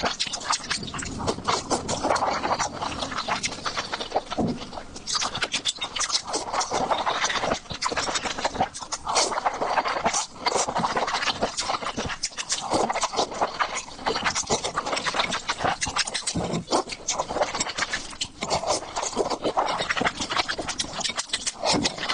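Close-miked eating sounds: chewing with a continuous run of wet smacks and clicks, swelling and easing every second or two.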